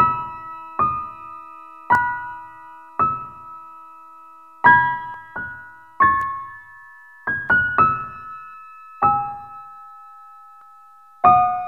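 Background music: a slow, sparse piano melody, its notes struck one or a few at a time, about once a second, and left to ring out.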